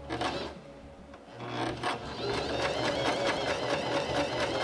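Singer MX60 electric sewing machine stitching through fabric: a short run at the start, then after a brief pause a steady, rapid, even clatter of the needle from about two seconds in.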